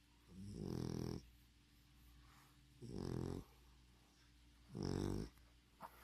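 English bulldog snoring: three loud, rasping snores about two seconds apart, with quieter breathing between them.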